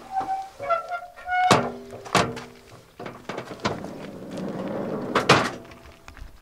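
Metal camping cookware knocking and clinking as it is handled: several sharp clanks, each leaving a ringing tone that fades, with lighter clicks and a short rustle between them.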